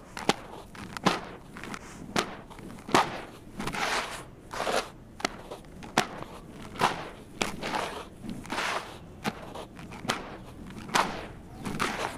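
Handfuls of gritty sand-cement mix crumbling and pouring down into a plastic basin: repeated gritty swishes, about one or two a second, with sharp clicks of grains and small chunks landing.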